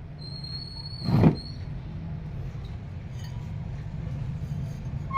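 Washing machine outer tub assembly being handled: a brief high squeal and a single loud knock about a second in, over a steady low rumble.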